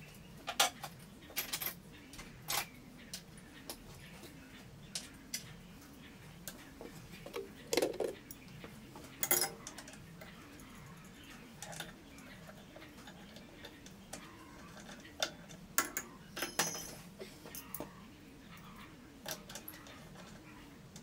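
Scattered metallic clicks and clinks of small metal tools and parts being handled at a drill press, over a faint low hum.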